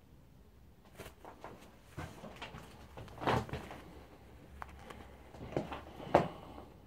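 Scattered taps, knocks and rustles from a racing pigeon being handled and turned over in the hands, with two louder thumps about three and six seconds in.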